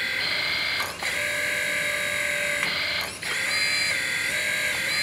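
Electric hydraulic pump of a 1:14 scale RC excavator running with a steady whine under test after a hose replacement; its whine dips and shifts pitch briefly twice, about a second in and again about three seconds in.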